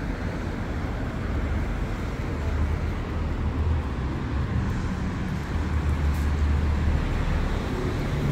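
City street traffic: a steady rumble of passing cars that swells twice.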